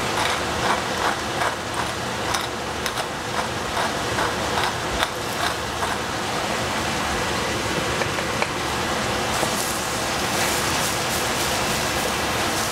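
Vegetables sizzling in a saucepan with a steady hiss. Over it, a pepper grinder clicks two to three times a second for the first half, and near the end the spatula scrapes and knocks against the pan.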